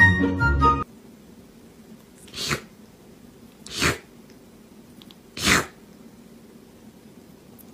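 Background music cuts off about a second in, then a kitten sneezes three times: short, sharp bursts roughly a second and a half apart.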